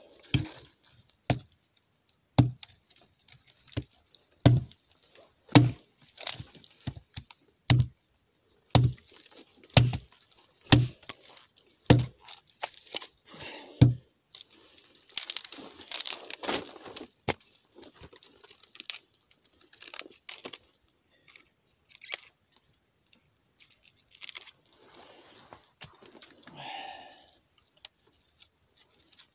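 Carpenter axe striking wood on a log: about a dozen sharp chops with a dull thud, roughly one a second, then scraping and lighter knocks and rustles as the wood is worked and handled.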